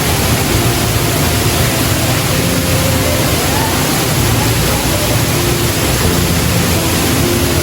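Waterfall rushing: a loud, steady roar of falling water that does not let up.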